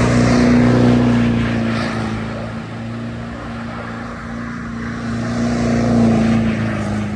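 Diesel truck engine running loud at steady revs, holding one pitch, with a little swell near the start and again about six seconds in.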